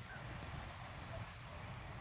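Wind rumbling on the microphone, with a few faint short bird calls in the distance.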